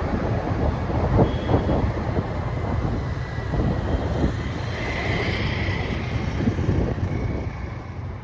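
Vehicle on the move with wind buffeting the microphone: a steady low rumble.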